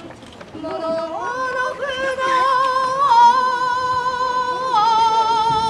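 A single voice chanting shigin, the recited Chinese-style poetry that accompanies a kenbu sword dance, in long held notes with a wavering pitch. The held note steps down slightly about three seconds in and again near the end.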